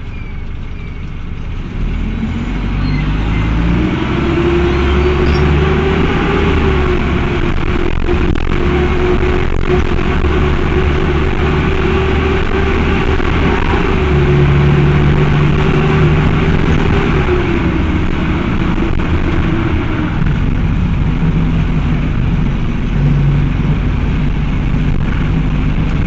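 Cummins ISBe four-cylinder diesel of an Agrale MT12.0 LE midibus under way. Its note rises about two seconds in, holds steady, and falls away about twenty seconds in. The engine-driven radiator fan is engaged throughout, which the uploader links to these Cummins engines' habit of running hot.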